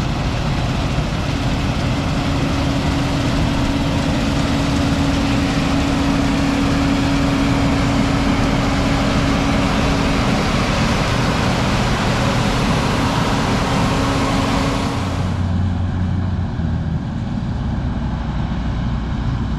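Farm harvest machinery engines running: a loud, steady engine noise with a hum and a hiss. About fifteen seconds in the hiss drops away sharply, leaving a lower engine rumble.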